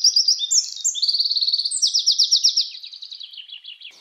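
A songbird singing a long, fast run of loud, high trills and repeated notes, tailing off into quieter, slower notes near the end.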